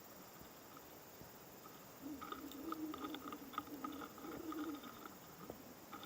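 A Miyama stag beetle, close-miked, making faint scratching and crackling sounds in a cluster of small clicks that starts about two seconds in and fades out about five seconds in.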